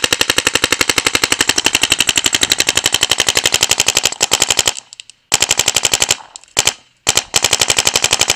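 Dye DAM paintball marker with an E14 breech firing on full auto: rapid, evenly spaced shots at about a dozen a second, in long strings. The strings are broken by short pauses around five and seven seconds in.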